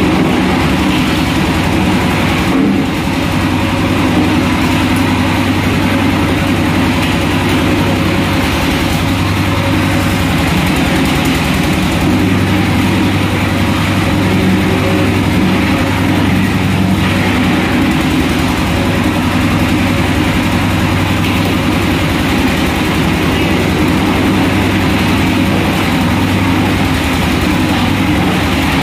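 An engine running steadily at constant speed, a loud continuous drone that does not change.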